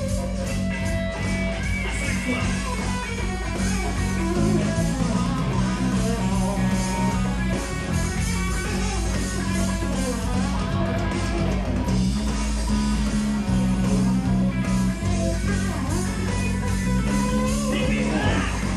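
Live rock band playing an instrumental passage: electric guitar lead lines with bent notes over a steady bass line and drums.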